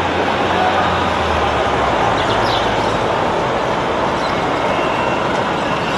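Steady, loud city street traffic, with vehicles running past. A low engine hum stands out during the first second and a half.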